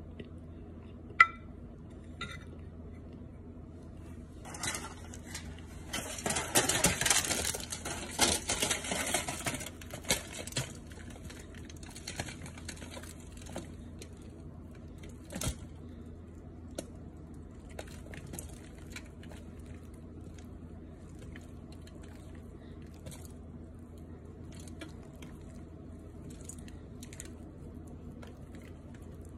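Metal spoon clicking on a glass dish and scraping through dry, crumbly cornstarch. A few seconds in comes a dense crackling crunch lasting about six seconds, then only scattered faint clicks.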